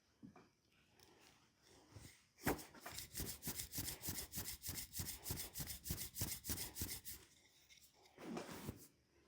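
Hands striking a leg in quick percussive massage strokes, about four or five a second for several seconds, followed by a brief rub near the end.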